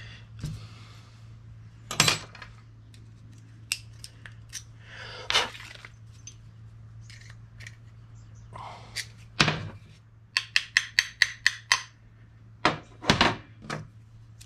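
Sharp metal knocks and taps on a steel cross-pin differential as a part is tapped home into the case. Single strikes come every second or two, then a quick run of about eight light taps a little after ten seconds in, and a few more strikes near the end.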